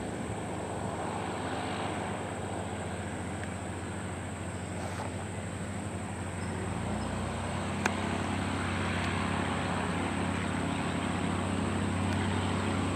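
Single-engine propeller airplane's piston engine running steadily through a touch-and-go. About halfway through, the engine note rises in pitch and grows louder as power comes up for the climb-out, with one sharp click a little later.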